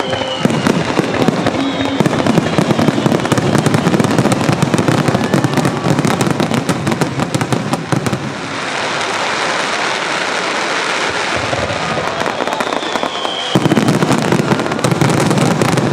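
Aerial fireworks going off in a rapid barrage of overlapping bursts and bangs. For several seconds in the middle the bangs run together into a steady crackling hiss.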